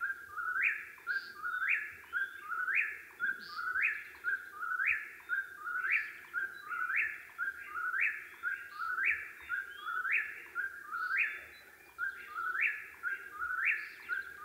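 Eastern whip-poor-will singing its repeated whistled 'whip-poor-will' phrase, about one phrase a second without a break, each ending in a rising upslur.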